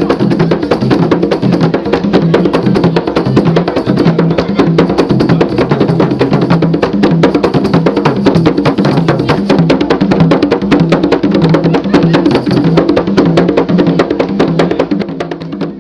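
Traditional African percussion music: drums with a fast, dense beat of wooden clicks over a steady pitched accompaniment, fading out near the end.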